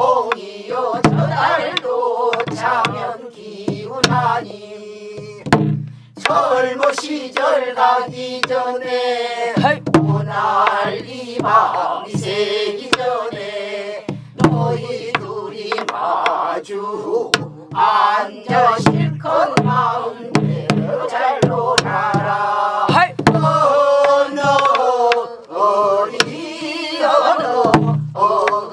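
A mixed group of men and women singing a southwestern Korean (Namdo) folk song together, keeping time with strokes on buk barrel drums.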